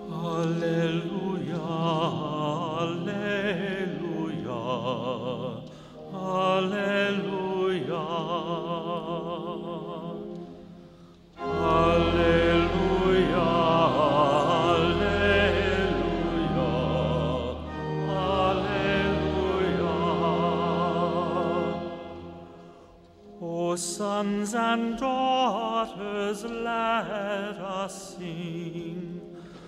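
Choir singing a sacred hymn in phrases with vibrato, pausing briefly between phrases. Deep sustained bass notes join about twelve seconds in and drop away about ten seconds later.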